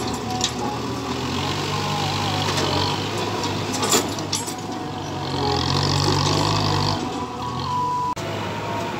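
Farm tractor's diesel engine working as it drags a disc harrow through loose dirt, the engine note swelling and easing, with a sharp clank about four seconds in.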